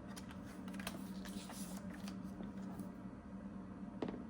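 An eight-sided die rolled on a soft desk pad, with light taps and paper rustling from handling on the desk and one sharper click about four seconds in, over a steady low hum.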